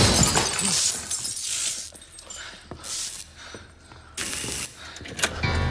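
A loud shattering, breaking crash right at the start, followed by several shorter bursts of noise, with one sharp-edged burst a little past four seconds in.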